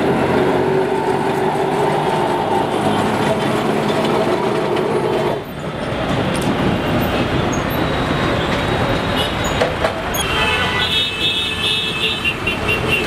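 Electric tram running past close by on street track: a steady running noise with a humming whine in the first few seconds. Near the end, a run of short high-pitched tones joins in.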